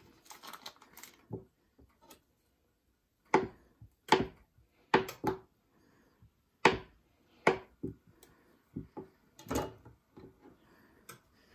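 Chef's knife cutting a stick of butter into pats on a plastic cutting board: about seven sharp knocks of the blade on the board, spaced irregularly about a second apart, after faint rustling of the butter wrapper.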